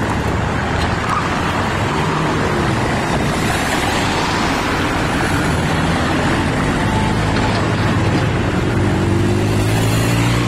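Steady road traffic with cars and a van passing close by. Near the end an engine rises steadily in pitch as a vehicle speeds up.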